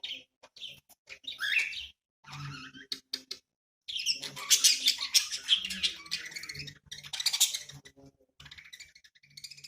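Budgerigars chirping in short, high calls, then breaking into a dense run of chattering warble from about four seconds in until about eight seconds in.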